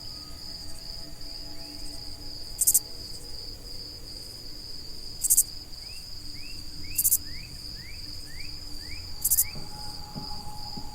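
Insect chorus: a steady high cricket trill, with loud short high buzzes repeating about every two seconds and a run of short rising chirps in the middle.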